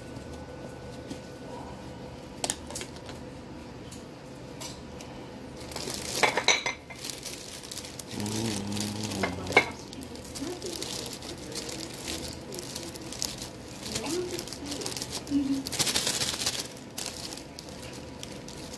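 A metal fork clinking and scraping against a bowl of salad, with a few sharp clicks. A plastic bread bag rustles and crinkles in two spells, the second near the end.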